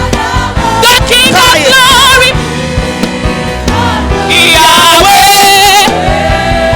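Live gospel worship music: a choir and lead voices singing with a vibrato over a band accompaniment.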